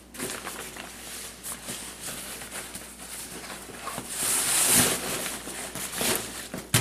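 Nylon backpack fabric and stuff sacks rustling and swishing as gear is dug out of an Exos 48 pack, loudest about four seconds in, with a sharp click near the end.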